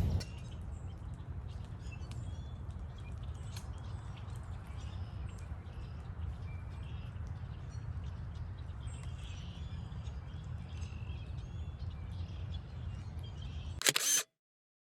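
Wild songbirds chirping and calling in scattered short notes over a steady low rumble. Just before the end there is a brief loud noise, and then the sound cuts off abruptly.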